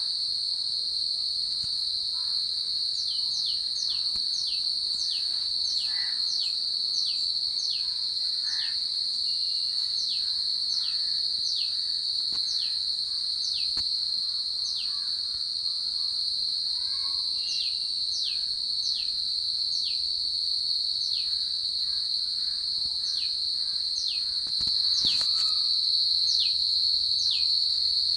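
Continuous high-pitched trill of insects, cricket-like, with a steady shrill tone. Over it, a short falling whistled note repeats about once or twice a second from a few seconds in, pausing briefly around the middle. A single sharp knock comes near the end, after which the trill is a little louder.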